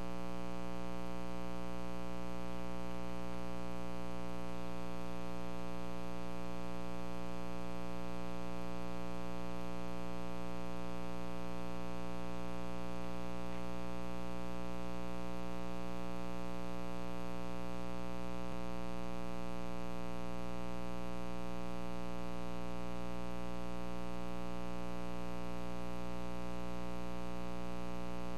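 Steady electrical mains hum, a buzzing tone with many overtones that holds the same level and pitch.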